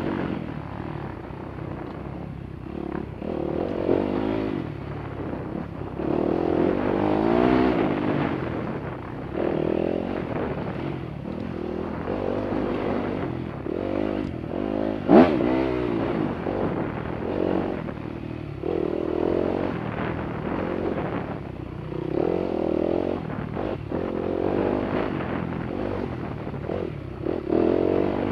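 Off-road dirt bikes revving through their gears, the engine note climbing and falling again and again as several bikes pass in turn. A single sharp bang sounds about halfway through.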